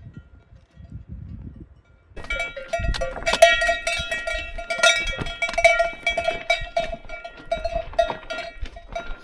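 Bells on a flock of sheep clanking and jingling as the animals move along and off the path, starting about two seconds in and going on in a continuous jangle of many bells.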